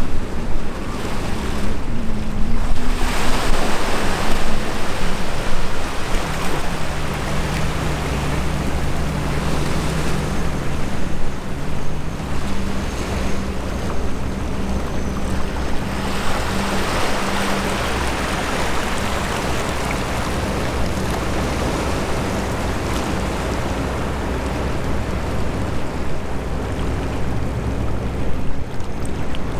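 Low, steady drone of a bulk carrier's and a tug's diesel engines, under wind on the microphone and the wash of water at the hull. The wind noise swells about three seconds in and again around sixteen seconds.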